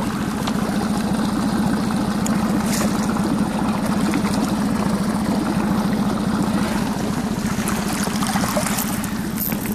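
Small outboard motor on an inflatable boat running steadily at low speed, with some water splashing from a hooked lenok thrashing at the surface.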